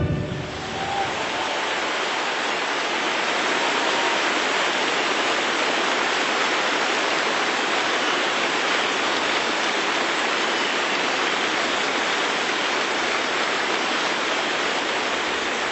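A large audience applauding steadily as the orchestral music ends.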